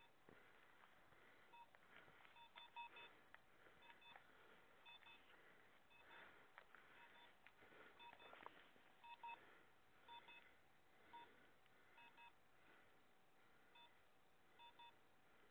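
Faint electronic beeping from a hunting dog's beeper collar: short, high beeps, often several in quick succession, repeating at irregular intervals. Under the beeps is a faint rustle of a setter moving through scrub.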